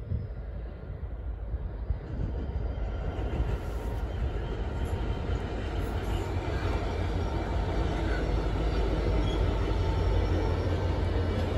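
GB Railfreight Class 66 diesel locomotive 66767, with its two-stroke V12 engine, approaching and passing at the head of an intermodal container train. The engine and wheel rumble builds from a couple of seconds in and is loudest near the end as the container wagons follow.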